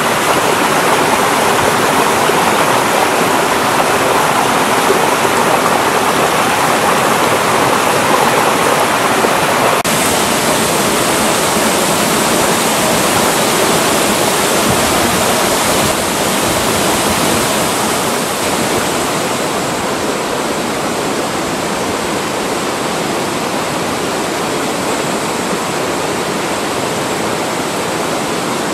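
Mountain valley stream rushing, a loud steady wash of water. About ten seconds in its tone turns brighter, and a little past halfway it drops slightly in level.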